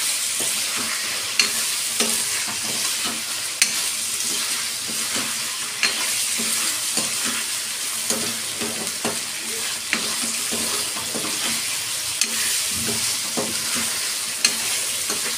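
Chicken pieces and ginger-garlic paste sizzling steadily in hot oil in a metal kadai as they are browned, with a large metal ladle stirring and scraping through them and knocking against the pan every couple of seconds.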